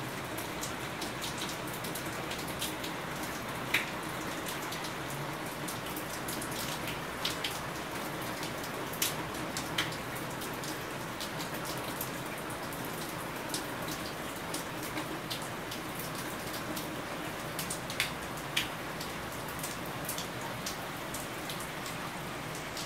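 Steady rain falling on a wet wooden deck and paved patio: an even hiss with scattered louder ticks of single drops, a few of them sharp.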